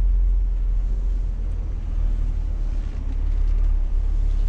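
Scania S500 truck's diesel engine running at low speed, a steady deep rumble heard from inside the cab.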